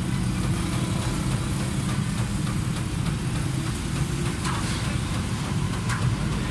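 A vehicle engine idling steadily with a low hum, with a couple of light clicks about four and a half and six seconds in.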